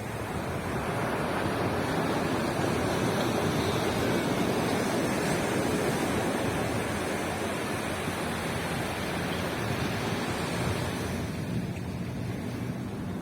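Ocean surf on the beach: a wave swells, breaks and washes in over several seconds, then eases off near the end.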